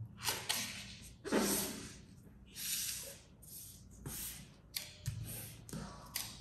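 Short rustles of a US dollar bill's banknote paper, about eight in a row, as fingers run along the fold to crease it and then open the bill and smooth it flat on the table. The loudest rustle comes about a second and a half in.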